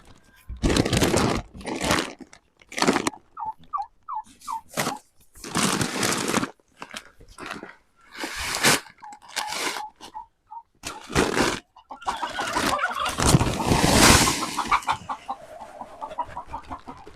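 Chickens clucking in short notes, amid repeated short bursts of rustling noise, which are the loudest sound.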